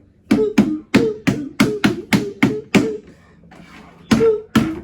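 A rapid series of sharp taps, about three a second for a couple of seconds, then a pause and two more near the end.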